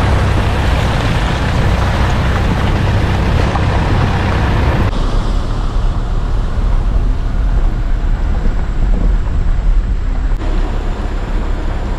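SUV driving slowly on an unpaved gravel and dirt track: steady tyre and road noise with engine rumble and wind on the microphone. About five seconds in, the high hiss drops away and a deeper low rumble takes over.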